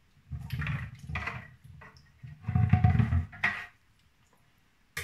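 Handling sounds from a head of chicory being trimmed by hand with a small knife: a few bursts of rubbing and knocking, with a quiet gap near the end.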